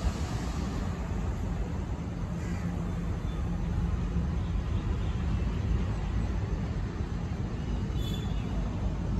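Diesel locomotives idling in the distance: a steady low rumble with a faint engine hum, and a brief high chirp about eight seconds in.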